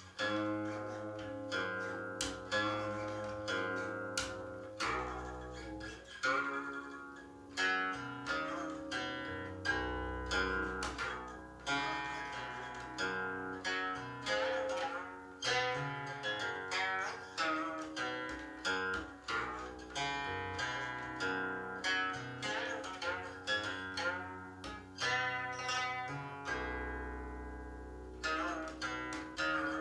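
Guqin played solo, recorded through a laptop's built-in microphone: a fast, dense passage of plucked notes, often more than one at a time, with ringing low notes and pitches that slide as the left hand glides along the strings.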